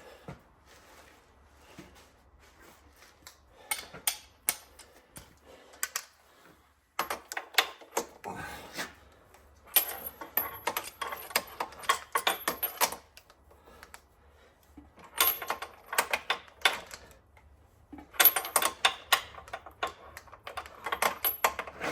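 Ratchet wrench clicking in repeated bursts of rapid metallic clicks a few seconds long, with short pauses between, as engine bolts are turned.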